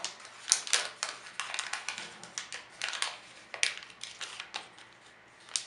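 Metallic gift-wrap paper crinkling and crackling as hands fold it and press it into creases, in quick irregular crackles that thin out near the end.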